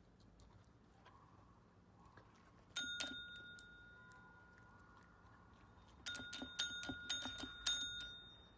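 Tabletop service bell pressed by a small dog's paw: one ring about three seconds in that rings on, then a quick run of about eight rings between six and eight seconds in.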